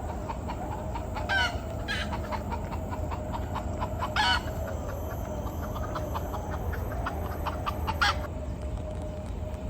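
Chickens clucking, with short, sharp calls about a second and a half, two, four and eight seconds in, the loudest near four seconds, over soft quick clucks.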